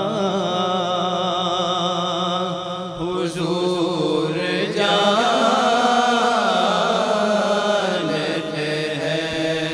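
Male voices reciting an Urdu naat, drawing out long held notes that bend slowly in pitch, with no instruments. It grows louder about five seconds in.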